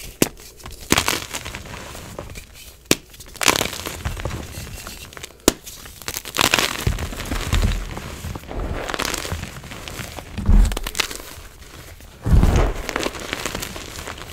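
Gym chalk blocks and loose chalk powder crushed by hands in a bowl: several sharp snaps as pieces break in the first half, then rough, crunchy squeezing and crumbling of the powder, with a couple of dull low thumps in the second half.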